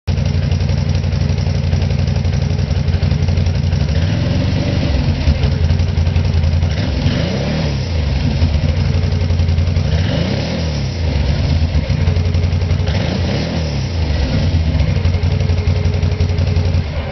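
Can-Am Outlander 650 ATV's V-twin engine idling through its exhaust, blipped up and back down to idle about three times.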